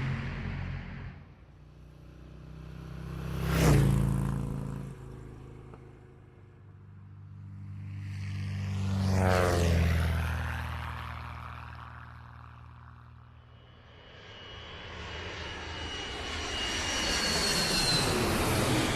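Three fast engine fly-bys, one after another, each swelling as it approaches and fading as it goes. The engine pitch drops as each passes; the last one carries a high whine.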